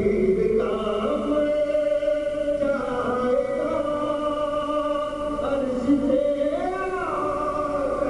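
A man sings a devotional manqabat solo into a microphone, holding long notes and sliding between them in melismatic turns.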